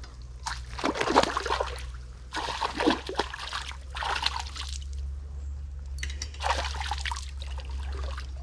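Hooked black bass thrashing at the surface, water splashing and sloshing in about five separate bursts, over a steady low hum.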